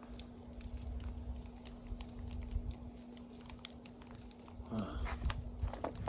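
Footsteps crunching irregularly on snow and sleet, with a low rumble on the microphone.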